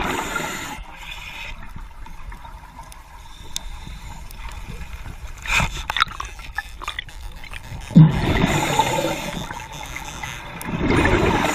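Underwater water noise, a gurgling, bubbling wash that swells in louder surges every few seconds.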